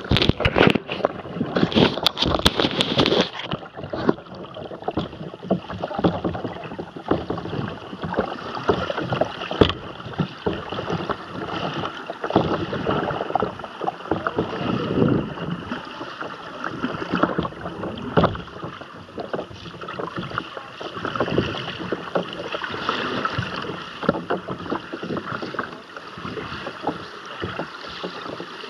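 Turbulent river water heard from underwater through a camera housing on a capsized kayak: a muffled, steady rush of churning whitewater with many knocks and bumps, loudest and busiest in the first few seconds.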